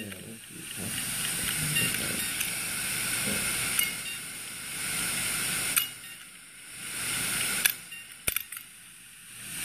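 The actuator arm of an opened hard disk drive moved by hand over the platter. It gives a rushing noise that swells for several seconds, fades, swells again briefly, and is broken by a few sharp clicks near the end.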